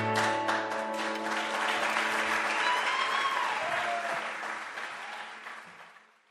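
The last held notes of the ensemble's strings die away in the first second. Audience applause follows, with one voice calling out about three seconds in, and then it all fades out.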